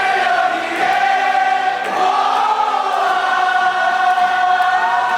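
A large stadium crowd of baseball fans singing a cheer song together in unison, with long held notes.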